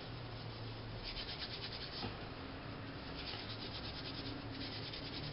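Dried oregano sprigs rubbed between the hands, the brittle leaves crumbling off the stems with a faint, dry, scratchy rustle. It comes in short spells of quick rubbing strokes, a second or so each.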